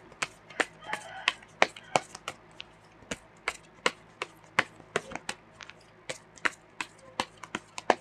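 Tarot cards being shuffled and handled: a quick, uneven run of sharp card snaps and clicks, about three a second.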